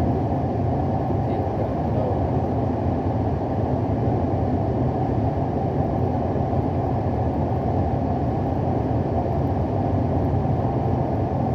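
Steady low rumble of a moving vehicle, engine and road noise heard from inside the cabin, without changes in pitch or level.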